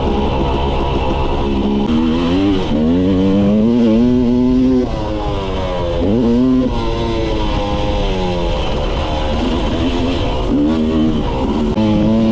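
Yamaha YZ250 two-stroke dirt bike engine revving up and dropping back several times as the bike accelerates and shifts through the gears, heard from the rider's seat.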